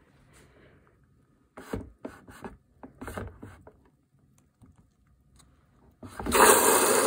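Small plastic clicks and rattles from a washing machine's detergent drawer being handled, grouped a couple of seconds in. Near the end a loud, steady rushing noise starts suddenly.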